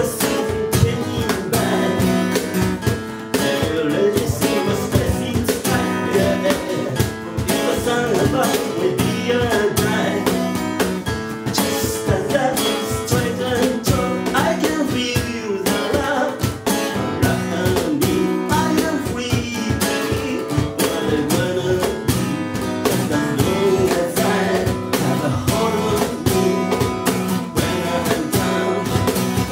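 Live acoustic duo: a man singing while strumming a cutaway steel-string acoustic guitar, with a cajon struck by hand keeping the beat.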